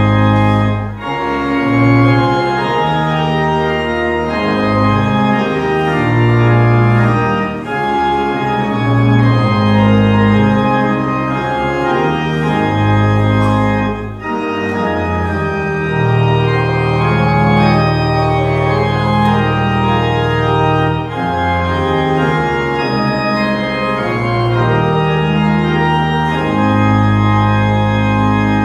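Church organ playing a hymn in held chords, with short breaths between phrases about a second in and again about fourteen seconds in.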